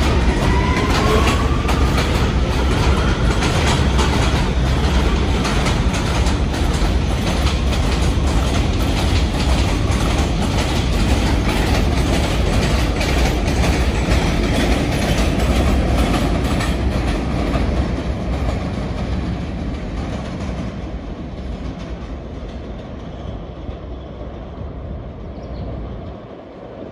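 New York City subway train pulling away: a motor whine rising in pitch at the start, then steady wheel-on-rail clatter over the joints. The sound fades away over the last ten seconds or so.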